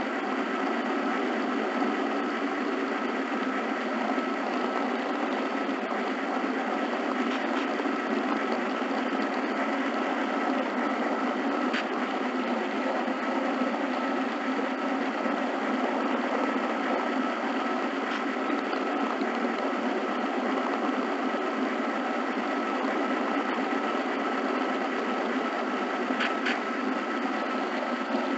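HO-scale model train running along the track: a steady whir of its small motor and gear drive with a constant whine, and a few faint clicks.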